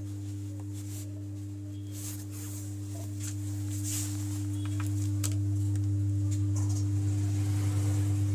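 Home theater subwoofer giving a steady low hum in place of its proper sound, the fault being repaired; the hum swells gradually louder a few seconds in.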